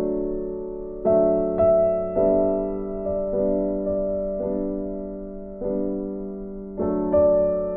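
Background piano music: slow, gentle notes and chords struck about once a second, each ringing on and fading.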